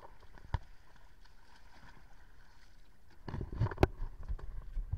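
Knocks and thumps on a small wooden dory as someone climbs aboard, a dense run of them starting about three seconds in with one sharp knock the loudest. Before that, a single sharp click.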